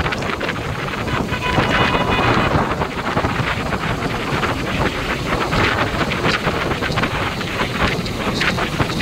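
Wind buffeting the microphone of a motorcycle riding at speed: a loud, steady rushing noise with uneven gusts, and road and traffic noise beneath.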